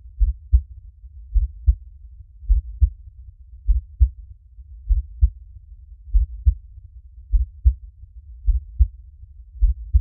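Human heartbeat: steady low double thumps, lub-dub, a little slower than one beat a second.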